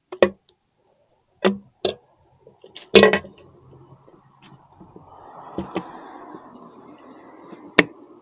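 Metal parts clinking and knocking as a motorcycle clutch cover is fitted back onto the engine case: a series of separate sharp clacks, the loudest about three seconds in, with soft rustling handling noise in the second half.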